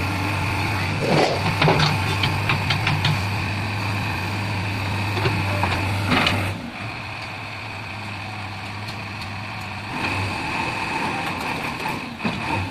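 JCB backhoe loader's diesel engine running steadily, with a steady whine over it and several short metallic knocks in the first few seconds and again about six seconds in, as the rear digging bucket is set down and uncoupled from the arm. The engine drops to a quieter idle soon after the six-second knock.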